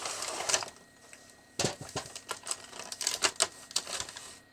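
Plastic toy packaging being handled, with rustling at first, then a quiet moment, then a run of irregular sharp clicks and crackles.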